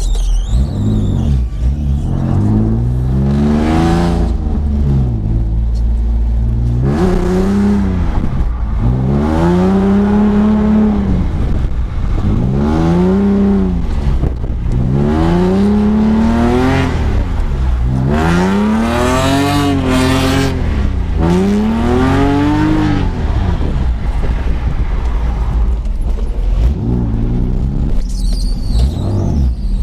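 BMW E46 330Ci's 3.0-litre straight-six revving hard and falling back over and over, about every two to three seconds, as the car is driven sideways in a drift.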